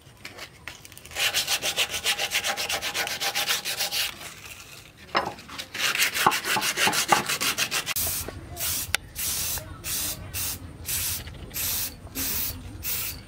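Sandpaper rubbed rapidly back and forth over a wooden knife handle in two bouts of quick, even strokes. From about eight seconds in, a series of short hissing spray bursts as the handle is coated with red finish.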